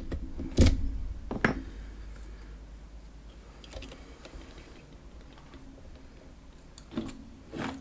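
A few sharp, scattered metal clicks and taps from a PacLock padlock and picking tools being handled, with a pair of clicks near the end.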